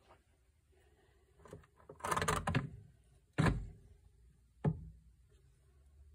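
A hollow rock-style reptile hide being handled: rustling and scraping for about half a second, then two sharp knocks over the next two seconds as it is bumped and set down.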